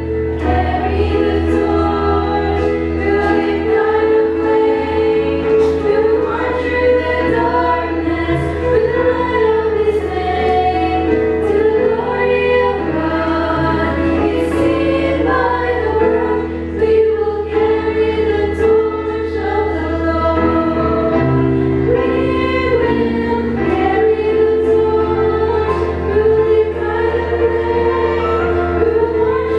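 Group of five young women singing a Christian song together in harmony into microphones, the voices held in long sustained notes without a break.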